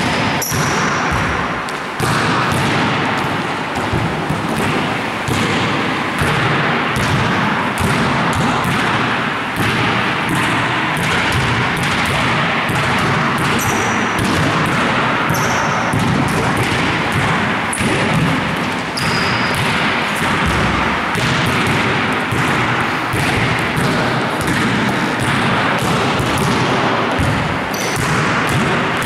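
Basketballs bouncing and being passed, many overlapping bounces and thuds in quick succession, with a few short high squeaks now and then.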